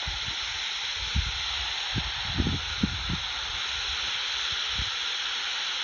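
Bat detector's steady hiss, with a few soft low plops clustered two to three seconds in and one near the end, which the listener takes for a common pipistrelle passing.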